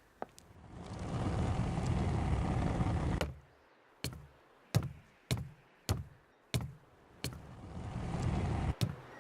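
Designed sound effects: a rushing noise swells up and cuts off abruptly, then six sharp knocks come at an even pace, then a second rush builds and is cut off with a click.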